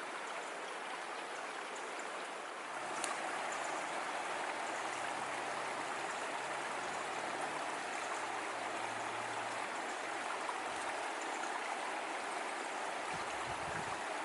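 A stream running: a steady rush of flowing water that gets a little louder about three seconds in.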